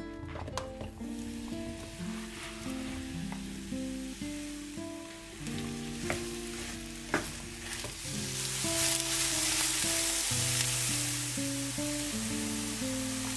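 Eggplant strips frying and sizzling in oil in a nonstick pan, stirred with a wooden spoon, with a few sharp knocks; the sizzle grows louder from about eight seconds in. Background music plays throughout.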